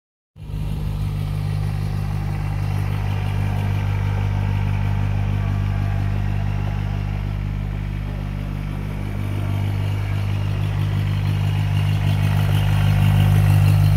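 Kubota BX2680 compact tractor's three-cylinder diesel engine running steadily as the tractor drives, growing louder near the end as it comes toward the listener.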